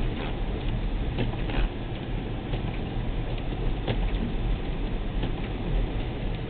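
Steady low rumble of a car driving on a snowy highway, with a few faint ticks.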